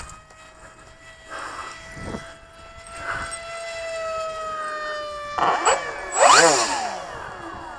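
Electric RC model planes' brushless motors and propellers whining. A steady whine slowly sinks in pitch, then about five and a half seconds in a louder whine sweeps sharply up and back down in pitch.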